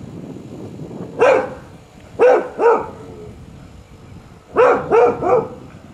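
Dog barking six times, a single bark, then two, then three in quick succession, at what is only a bag behind the garden fence.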